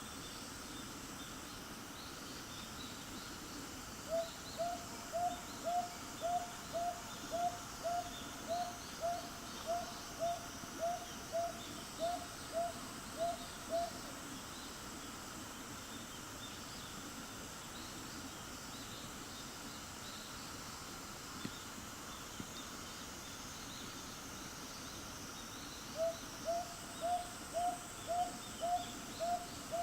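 Northern boobook (Japanese hawk-owl) hooting: a long run of short, low, evenly spaced hoots, about two a second, from about four seconds in to around fourteen seconds, starting again about 26 seconds in. A steady insect chorus carries on underneath.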